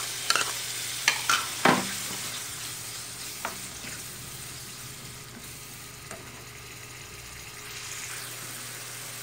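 Chopped tomatoes going into a frying pan of ginger, garlic, green chilli and onion paste frying in oil, and being stirred in: a few sharp knocks in the first two seconds, then a steady sizzle.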